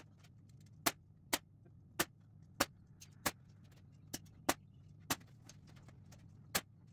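Pneumatic nail gun firing nails into a wooden frame: about ten sharp shots, irregularly spaced, roughly one every half second to second, over a steady low hum.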